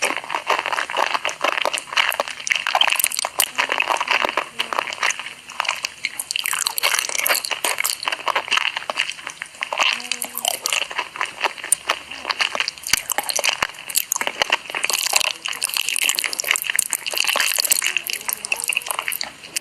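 Close-miked ASMR eating sounds of noodles and corn dogs: a steady run of crunchy bites with wet chewing and slurping.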